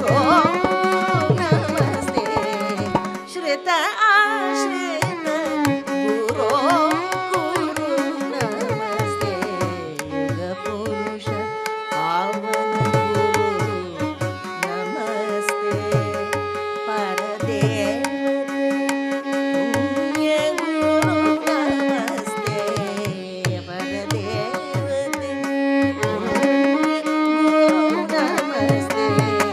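Carnatic classical music: a female vocalist sings gliding, ornamented phrases without clear words, accompanied by mridangam strokes, violin and a steady tanpura drone.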